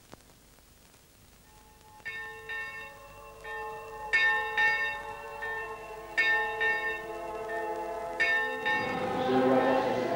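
Church bells ringing: a run of separate strokes, each leaving long ringing tones, starting about two seconds in. Near the end a choir starts singing.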